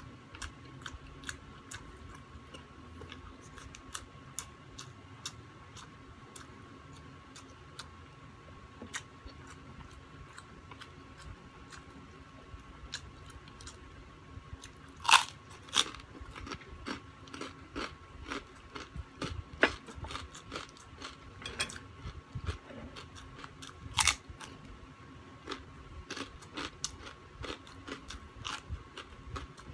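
A man eating: chewing and biting grilled pork barbecue, then loud, sharp crunches from biting crispy chicharon bagnet, pork crackling, starting about halfway through. A faint steady hum sits underneath.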